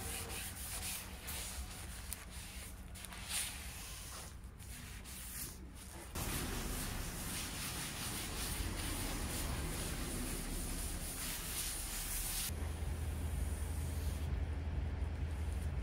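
Cloth rag rubbing oil finish into a wooden tabletop, a continuous scrubbing swish of cloth on wood. The sound jumps louder about six seconds in, and a steady low hum joins it near the end.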